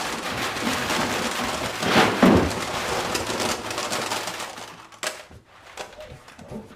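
Heavy rain falling, with a clap of thunder about two seconds in; the rain fades away over the last couple of seconds.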